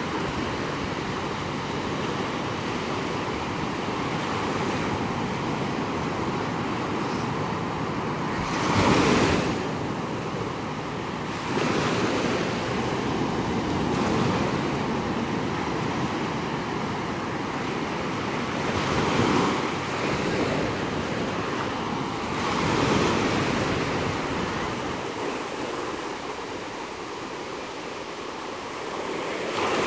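Small surf breaking and washing up a sandy beach in a steady rush. It swells louder every few seconds as each wave comes in, most strongly about nine seconds in and again at the end.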